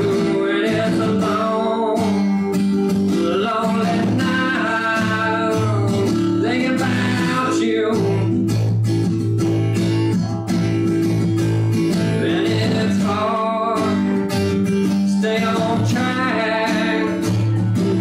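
A man singing while playing an acoustic guitar, live and unaccompanied.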